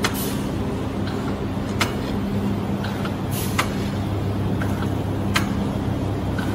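Vertical form-fill-seal granule packing machine running: a steady motor hum with sharp clicks about every second and a half to two seconds, the rhythm of its bag-making cycle.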